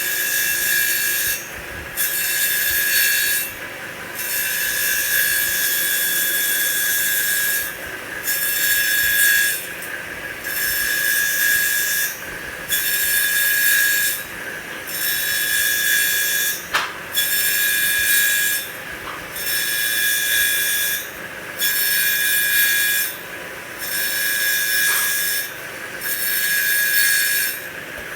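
CNC wood lathe cutting a spinning wooden blank into beads: a high-pitched screeching cut with a steady whine. It comes in repeated passes of one to four seconds with brief pauses between, about a dozen times.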